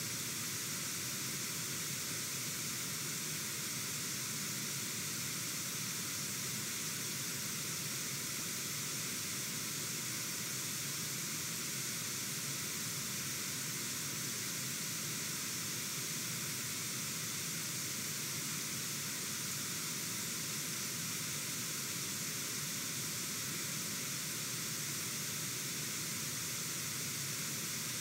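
Steady rush of fast-flowing river water, an even hiss that does not change.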